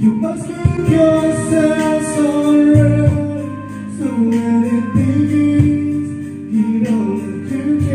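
Karaoke song playing from a karaoke player: a ballad-style music track with a sung melody line over the accompaniment.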